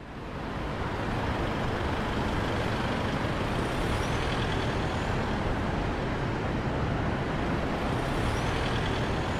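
Steady roar of road traffic, fading in at the start, with a faint high squeak near the middle and again near the end.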